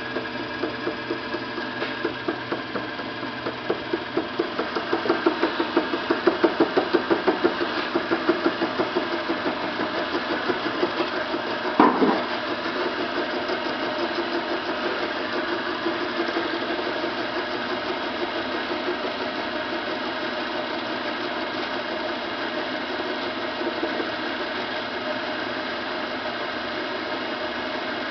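Sieg 7x10 mini lathe running while facing an irregular aluminium workpiece. The tool meets the uneven face in an interrupted cut, giving a rhythmic knocking of about three beats a second over the machine's running noise, with one sharp louder hit about twelve seconds in. After that the cut settles into a steadier, even sound.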